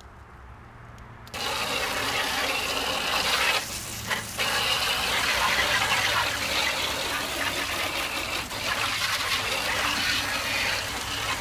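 Garden hose spray nozzle jetting water onto a plastic tabletop to rinse it down, a steady hiss and spatter. It starts about a second in, drops off briefly around four seconds, then runs on.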